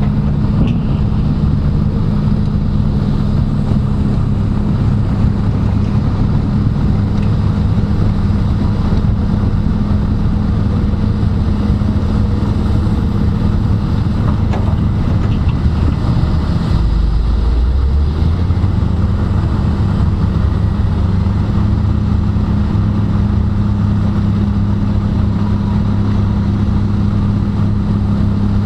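Steady multi-rotor drone motor and propeller hum with a few fixed low tones. The pitch shifts briefly a little past halfway, as the motors change speed.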